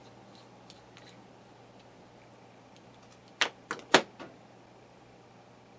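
Small metal parts of a tiny .049 model-airplane glow engine being handled during disassembly: a few faint ticks, then a quick run of about four sharp clicks a little over three seconds in, as a part is set down on the workbench.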